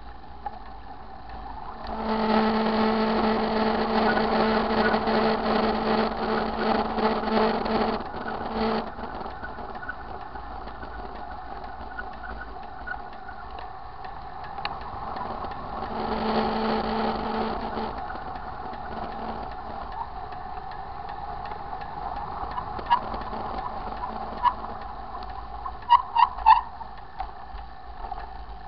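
Bicycle rear freewheel ratcheting in a fast, even buzz while the rider coasts, starting about two seconds in and lasting several seconds, then again for a couple of seconds midway, over steady riding noise. A few sharp clicks near the end.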